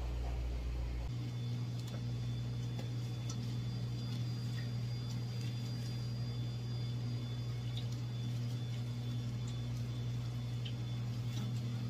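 A steady low hum that shifts in pitch about a second in, with a few faint light taps.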